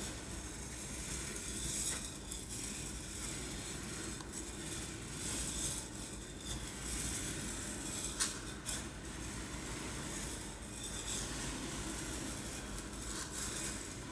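Uncooked rice grains rattling and rolling in a container, a continuous hiss that swells and fades to imitate waves on a beach, with one sharp click a little past eight seconds in.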